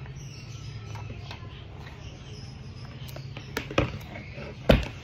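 Scattered light clicks and taps from things being handled, with two sharp knocks about four seconds in, over a steady low hum.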